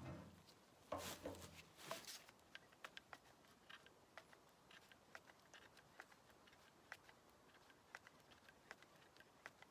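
Near silence with faint, irregular small clicks and ticks, and a brief louder sound about a second in.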